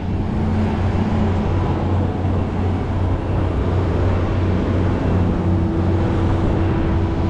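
A boat's engine running steadily, a constant low drone with a faint steady hum above it.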